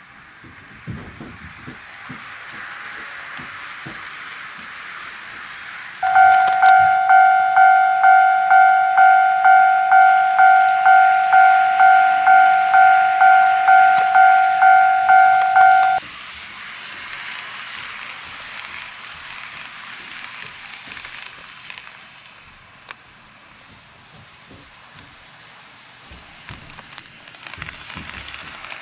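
A model railway level-crossing signal ringing its warning bell, an even ding-ding about twice a second, starting about six seconds in and cutting off about ten seconds later. Before and after it, the steady hiss and rattle of N-gauge model trains running on the track.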